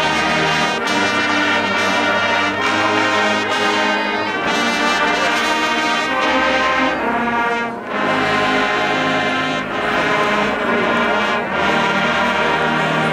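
Music: sustained chords over a low bass, shifting every second or so.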